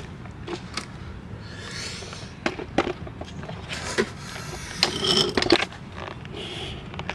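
Handling noises: scattered clicks and knocks with short rustling swishes, busiest in the middle, over a steady low hum.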